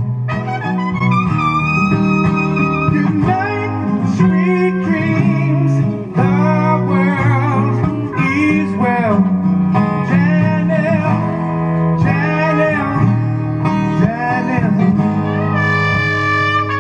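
A song with singing over guitar and a steady bass line.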